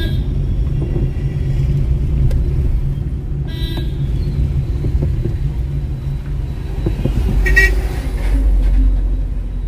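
Steady low rumble of a car moving slowly through traffic, heard from inside the cabin, with two short horn toots, one about three and a half seconds in and a brighter one near eight seconds.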